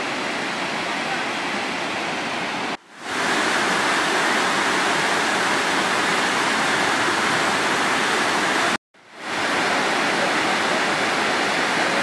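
Waterfalls rushing down over sandstone ledges: a steady, loud rush of white water. The sound cuts out suddenly twice, about three seconds in and about nine seconds in, and fades back in each time.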